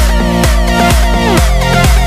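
Electronic background music with a steady beat and falling synth glides.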